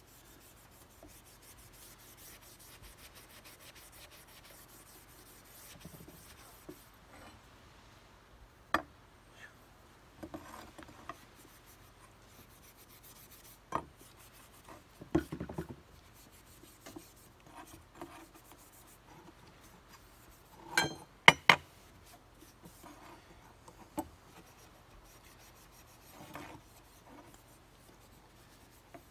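Steel wool rubbing on a steel rifle barrel, faint scrubbing that carries off the rust a browning coat has raised. It is broken by scattered sharp knocks, the loudest a close pair about two-thirds of the way through.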